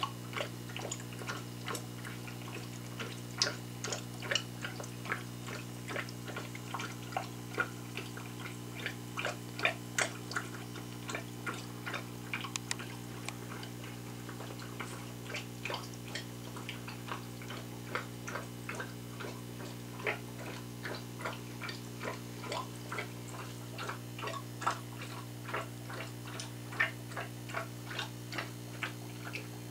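Aquarium air bubbler feeding a hang-on breeder box's airlift tube: irregular clicking and popping of air bubbles, several a second, over a steady low hum. This is the bubbler's annoying noise, from the air-driven flow that sucks baby clownfish through the tube from the main tank into the side breeder.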